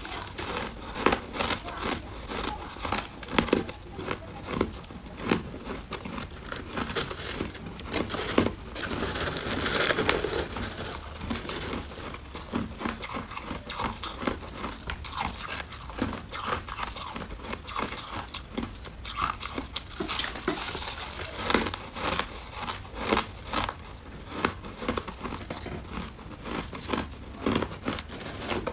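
Soft white frost ice crunched and chewed close to the microphone: a dense run of crackling bites, with the crunch of ice handled in a plastic-gloved hand.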